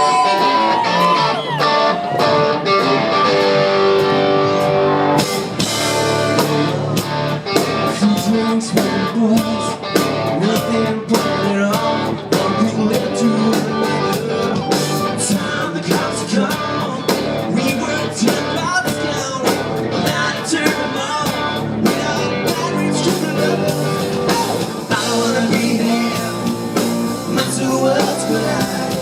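Country rock band playing: electric guitar over a drum kit, with a bending melodic lead line at the start and the drums and cymbals coming in fully about five seconds in.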